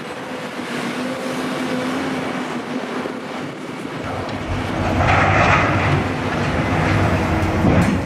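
Heavy construction machinery running: a steady engine hum with rumbling, clattering noise that grows louder about halfway through.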